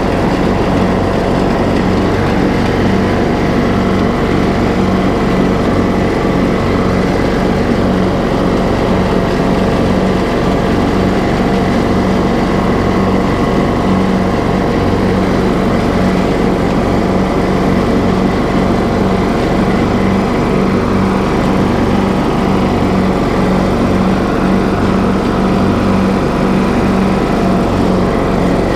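TroyBilt riding lawn mower's engine running steadily while mowing, with the cutting blades engaged. The level stays even throughout, with no change in engine speed.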